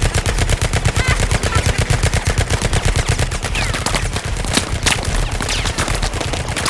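A dense, unbroken barrage of gunshots from several guns firing at once, the shots coming so fast they overlap. These are dubbed gunshot sound effects.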